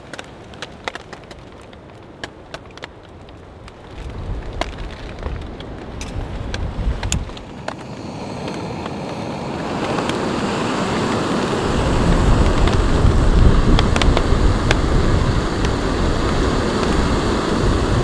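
Scattered sharp clicks and taps, then wind that builds steadily into loud gusts over the second half, buffeting the microphone.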